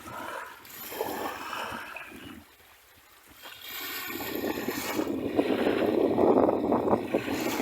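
Sea waves on a beach: a brief lull about a third of the way in, then a wave builds and breaks, washing in with a fizzing, splashing rush.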